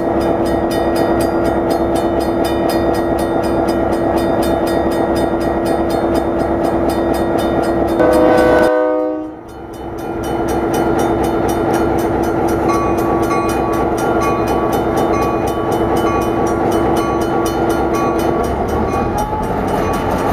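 Diesel locomotive engine running with a steady drone. About eight seconds in, a short horn blast sounds, several tones together, and the sound drops out briefly after it; the engine then runs on as the locomotive pulls forward.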